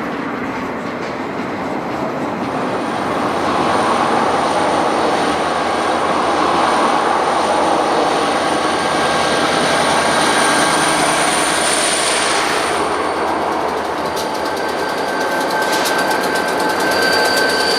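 Freight train cars rolling past on the rails: a steady loud rush of wheel and rail noise, with a thin high steady squeal over much of it.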